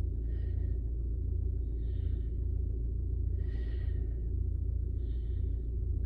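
Rover 75's engine idling, heard from inside the cabin as a steady low hum, with a soft electronic chime repeating about every second and a half.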